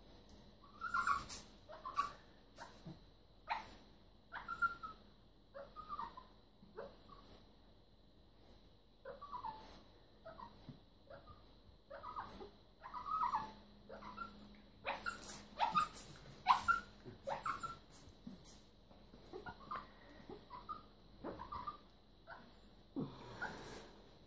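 Small dog making short whimpers and snuffling noises in irregular bursts throughout.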